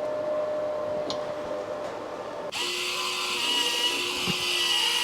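A faint steady hum, then about two and a half seconds in a power tool's motor is heard running with a steady whine over a hiss, starting abruptly.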